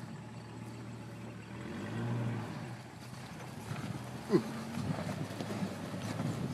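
1997 Jeep Wrangler TJ's inline-six engine running as the Jeep creeps over grass, its note swelling about two seconds in. Irregular knocks and thumps come in during the second half and grow busier near the end.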